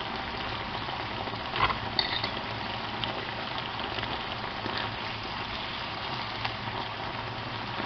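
Langoustines and prawns frying in a pan, a steady sizzle, with a few light knocks of a utensil against the pan about one and a half to two seconds in.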